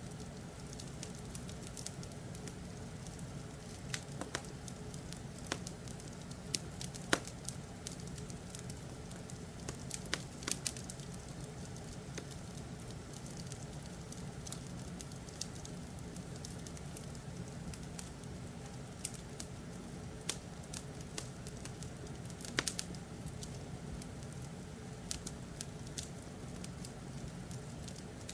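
Wood fire crackling in a fireplace, with irregular sharp pops and snaps over a steady low hum.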